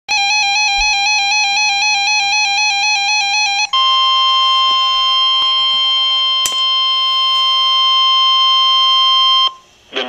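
Public-alert NOAA weather radio sounding a flood warning. A warbling electronic alarm that flips rapidly between two pitches is followed, almost four seconds in, by a steady electronic tone of about 1050 Hz, the NWS warning alarm tone, which stops about half a second before the end. There is a single sharp click a little past six seconds in.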